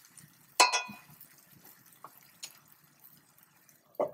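A metal spoon clinks and rings against a stainless-steel pan, then thick curry bubbles quietly in the pan with small pops. Right at the end a stainless-steel lid knocks down onto the pan.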